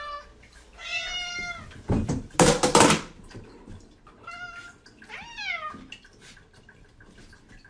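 A cat meowing three times, the last meow falling in pitch. Between the first and second meows there is a loud, brief burst of crackling noise.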